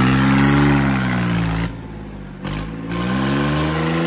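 Farmtrac 45 tractor's three-cylinder diesel engine being revved, blowing out through a tall upright exhaust stack. The revs are high at first and fall off about one and a half seconds in, then climb again and hold.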